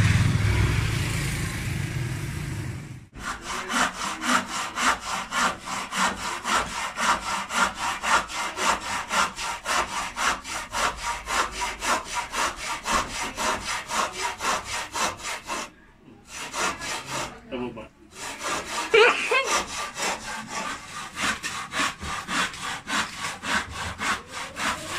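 Hand saw cutting through a wooden strip in quick, even back-and-forth strokes, about three a second, with two brief pauses. The first few seconds hold a louder steady noise before the sawing starts.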